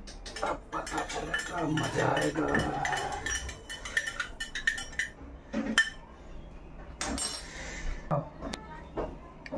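Metal spoon stirring and clinking against the inside of a stainless steel tumbler, a quick run of clinks that thins out after about five seconds, with a short hiss near the end.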